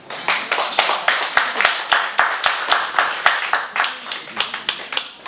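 A small audience applauding, the separate hand claps easy to pick out. It starts suddenly.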